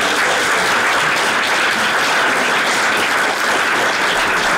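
Audience applauding steadily, a dense even clapping of many hands in a room that welcomes a speaker to the lectern.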